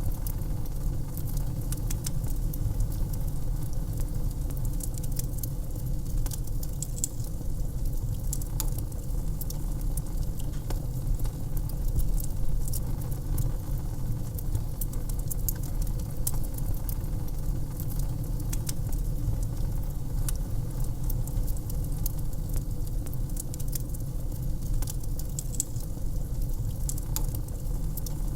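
Wood fire in a fireplace crackling, with frequent irregular snaps and pops over a steady low rumble.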